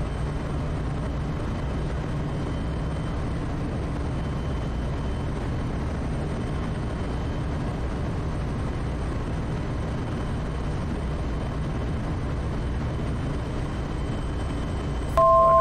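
Quest Kodiak's single turboprop engine and propeller making a steady drone inside the cockpit at approach power on final. In the last half second a loud, steady electronic tone at two pitches sounds.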